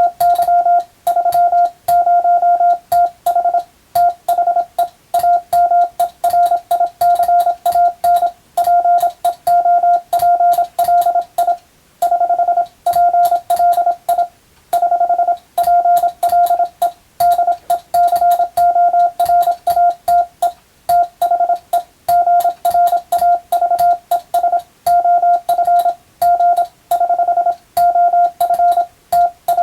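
Morse code (CW) sent by hand on a telegraph key: a steady mid-pitched beep keyed on and off in fast dots and dashes, broken by short gaps between characters and words. A sharp click comes with each stroke of the key.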